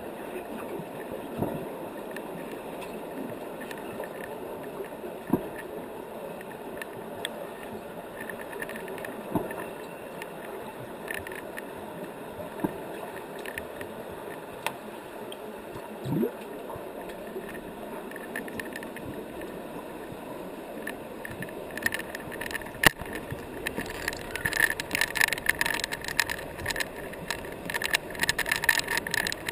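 Underwater sound of a swimming pool picked up by a submerged camera: a steady hiss with scattered knocks and clicks. About two-thirds of the way through, a dense crackling of clicks sets in and grows louder as a finned freediver swims close to the camera.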